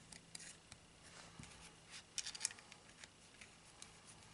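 Faint small clicks and taps of turret caps being fitted back onto an American Eagle 4-power rifle scope, with a quick cluster of sharper clicks a little past two seconds in.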